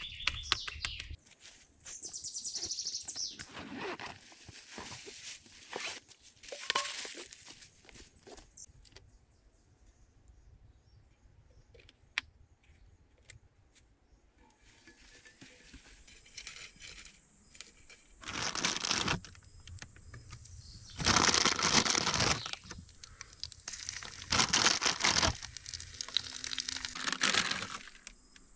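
Bursts of rustling, tearing noise with scattered knocks and clicks, from hands-on work. About halfway in, a steady high insect buzz like crickets sets in and carries on under four louder rustling bursts near the end.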